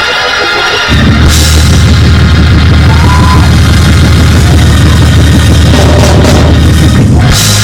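Loud live praise band playing, with drum kit, bass and electric guitar, and cymbal crashes about a second in and near the end.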